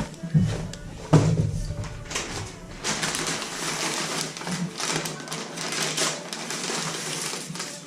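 Small wrapped candy packs being handled and dropped into a candy bowl: irregular wrapper rustling and light clicks and clatter.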